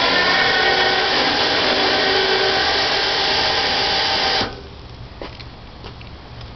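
Electric truck winch running under load, a steady motor whine with a couple of slowly drifting tones, hauling a shrub out of the ground on its cable. The whine cuts off suddenly about four and a half seconds in.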